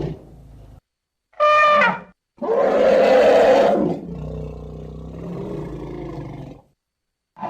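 Elephant calls: a short, high trumpet about one and a half seconds in, a longer, harsher trumpet blast about a second later, then a quieter, low drawn-out rumble that stops shortly before the end.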